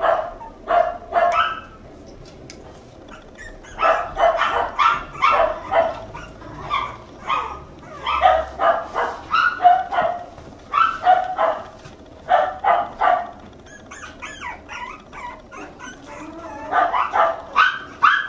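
Toy poodle puppy barking in runs of short, high yips, with two pauses of a couple of seconds.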